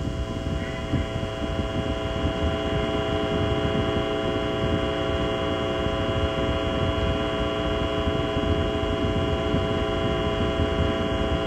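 Deep, steady rumbling noise of a Saturn V launch, with a held chord of several steady tones sounding over it.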